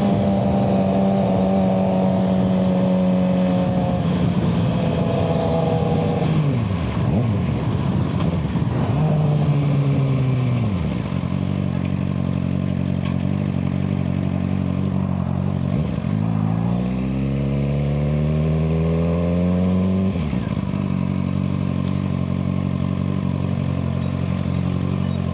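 Suzuki GSX-R600 inline-four engine running under way through an aftermarket M4 exhaust, with wind noise. The engine note holds, drops twice between about six and eleven seconds in, then climbs steadily for about four seconds and drops sharply near twenty seconds in before holding steady again. It pulls cleanly on a newly replaced clutch that the rider finds does not slip.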